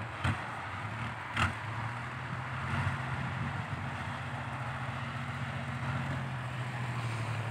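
Isuzu Deca 195 dump truck's diesel engine running through its new triple exhaust tips as the truck drives over the dirt, a steady low drone. Two short knocks sound in the first second and a half.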